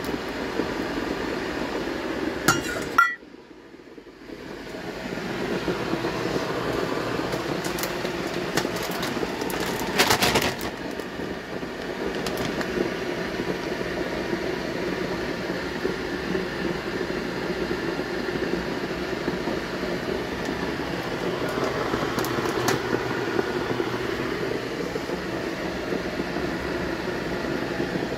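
A steady hum runs under clinks and knocks of dishes and a glass bowl being handled. There is a louder clatter about ten seconds in, and the sound cuts out briefly about three seconds in.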